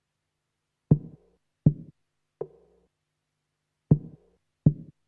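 Music intro of sparse drum-machine hits: three evenly spaced, a pause, then two more.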